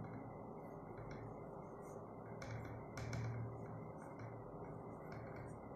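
Faint steady background hiss with a handful of short, light taps or clicks, a small cluster of them about halfway through.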